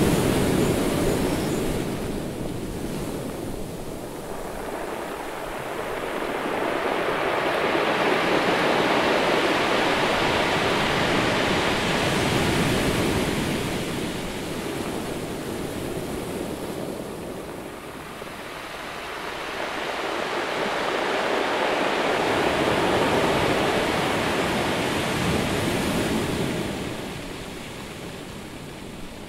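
Ocean surf: the wash of breaking waves swelling and ebbing slowly, with two long swells after a loud start.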